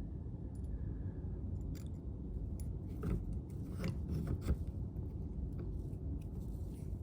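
Small clicks, taps and scrapes of door-lock hardware being handled and fitted, with a cluster of sharper knocks about three to four and a half seconds in, over a steady low rumble.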